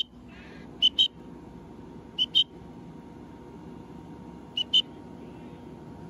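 A person whistling short two-note calls, the second note a little higher, repeated four times about every one to two seconds, over a steady low rumble.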